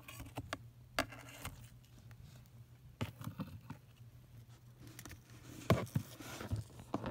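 Scattered scratches and taps against a plastic enclosure as a Vietnamese centipede and a Madagascar hissing cockroach struggle in the substrate. Near the end comes a short breathy hiss, the roach's defensive hiss as the centipede wraps around it.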